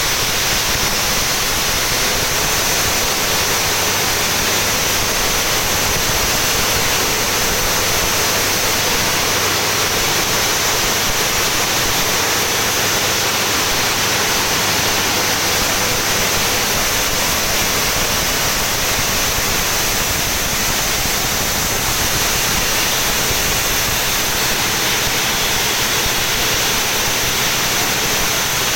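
Elliott Ebara 3 MW steam turbine running at steady load: a loud, unchanging high-pitched hiss of steam and machinery with a low steady hum beneath it.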